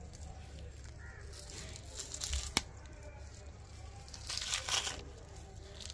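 Skin being torn off a tongue sole by hand, a wet ripping that comes in two bursts, about two seconds in and again, louder, near the fifth second, with a sharp snap at the end of the first.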